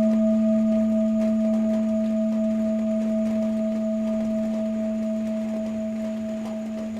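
Tibetan singing bowl ringing on after a strike, a steady low hum with a higher overtone that wavers in a slow pulse, slowly fading away.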